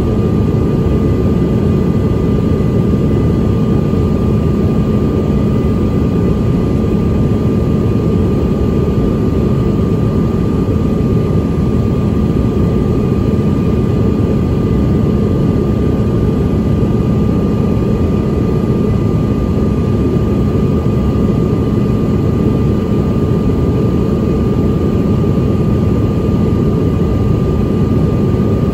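Cabin noise of a CRJ-900 regional jet in flight on descent: a steady rushing drone from the airflow and the tail-mounted General Electric CF34-8C turbofan engines, with a steady high tone running through it.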